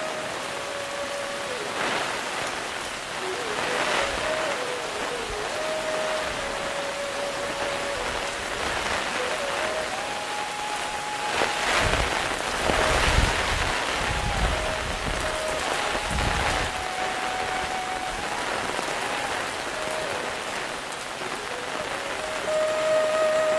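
Heavy rain falling steadily on an umbrella held overhead and on the wet lane. About halfway through it swells louder for a few seconds with a low rumble. A slow melody of long held notes runs faintly underneath.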